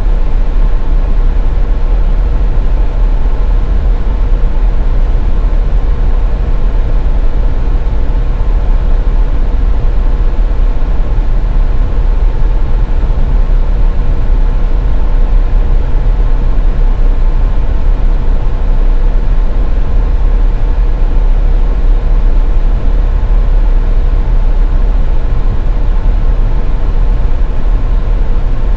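A car driving at highway speed: a steady low rumble of road and engine noise, with a faint constant hum over it.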